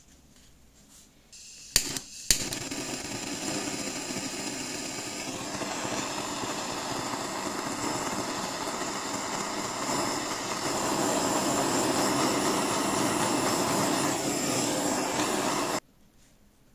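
Handheld gas blowtorch: two sharp clicks as it is lit, then a steady hissing roar of the flame for about thirteen seconds, cut off suddenly near the end. The flame is being played over discoloured plastic to take out the whitened marks.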